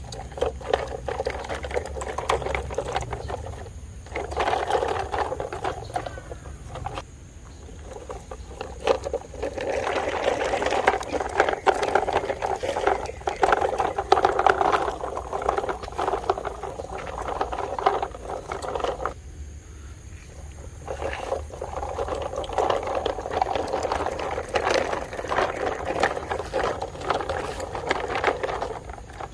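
Small motors and gears of a radio-controlled excavator running in spells of several seconds, with short pauses in between.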